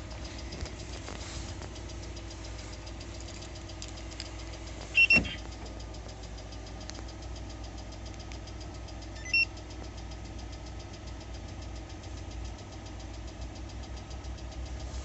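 Lada Largus engine running steadily with a fast, regular knock from the engine, the sign of a factory defect in the cylinder head. Two short high beeps sound about five seconds in and another near nine and a half seconds.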